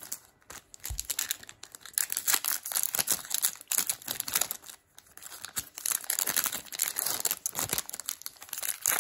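Foil Yu-Gi-Oh booster pack wrapper being torn open and crinkled in the hands, in two spells of dense crackling with a short lull about halfway. A soft thump comes about a second in.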